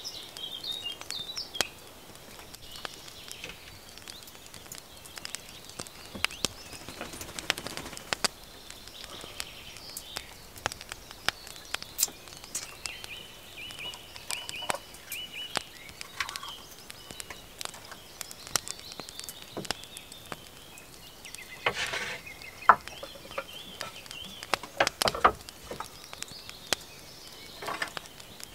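Rain dripping in irregular, scattered sharp taps, with faint chirping bird calls now and then.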